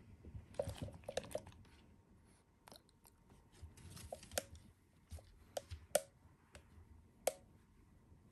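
A Pekingese chewing a crunchy dog treat: irregular crunches and clicks.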